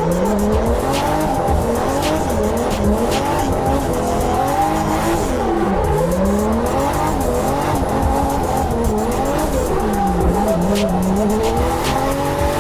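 Drift car engine revving up and dropping back again and again as it slides, with tyre noise underneath.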